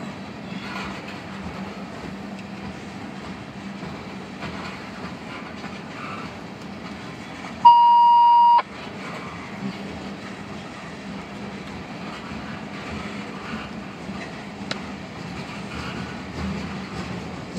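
Tank cars of a freight oil train rolling past, a steady rumble and clatter of wheels on rails. About eight seconds in, a loud steady beep lasting about a second blanks out the train sound.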